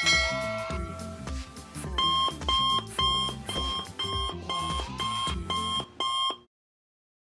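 Background music with a ringing chime at the start, then an alarm-clock beeping sound effect, about two beeps a second, from about two seconds in. All sound cuts off suddenly near the end.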